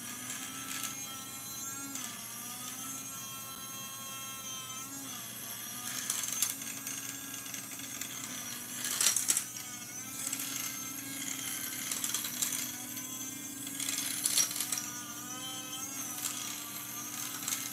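Small battery-powered electric grinder running steadily, grinding a large piece of chalk in its clear chamber, its motor hum wavering slightly in pitch. Chalk pieces clatter against the chamber, with a few louder rattles along the way; the big piece is being ground down slowly.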